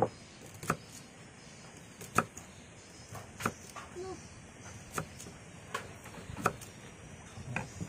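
Crisp bites and chewing of raw kedondong (ambarella) fruit: about eight sharp crunches at irregular intervals of roughly a second.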